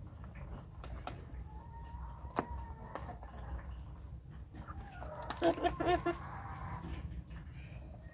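Young naked-neck chickens clucking as they feed: a quick run of about four short clucks a little past the middle, with a faint thin peep earlier on and a few light clicks.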